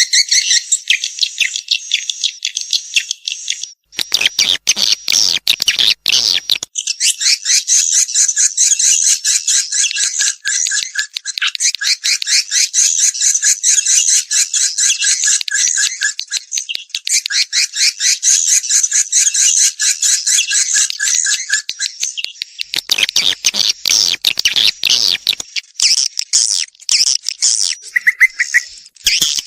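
Edible-nest swiftlet calls in a recorded courtship ('birahi') lure track: loud, rapid, high chittering trills that run on almost without pause. The trills give way to harsher crackling clicks twice, once about four seconds in and again near the end.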